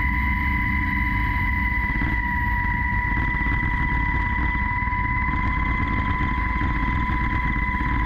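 Firefighting helicopter in flight, heard close up from its airframe: steady rotor and engine noise with a constant high turbine whine.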